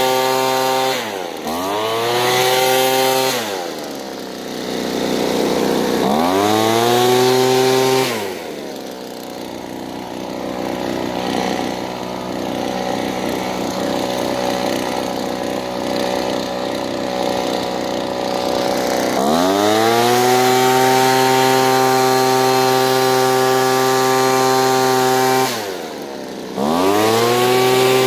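Handheld leaf blower running at full speed with a steady whine. Its speed drops and climbs back up about a second in and again a few seconds later. It runs lower and quieter for about ten seconds in the middle, comes back to full speed, and dips briefly once more near the end.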